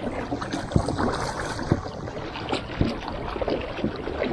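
Pedal kayak underway: a steady wash of water against the hull with irregular knocks and clicks from the boat and its pedal drive.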